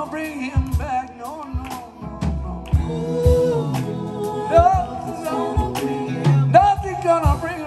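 Live rock band playing a song, with sung vocals over the band and regular drum hits.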